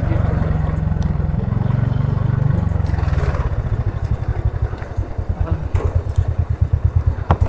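Scooter's single-cylinder engine running at low revs as the scooter slows. The steady drone gives way about halfway through to a rapid, even pulsing, and there is a sharp click near the end.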